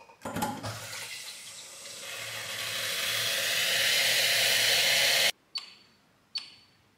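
Water running from a kitchen tap into a stainless steel pot, growing louder as it fills, then stopping suddenly a little after five seconds in. Two short beeps from an induction hob's touch controls follow.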